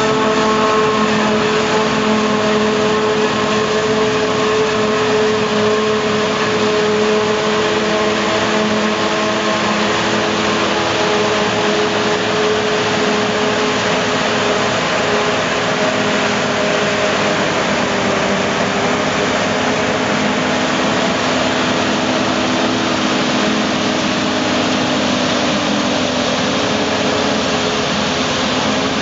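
John Deere 5830 self-propelled forage harvester running at working speed, its engine and chopper making a steady loud drone, with a tractor's diesel close alongside. The engine note sags a little past halfway.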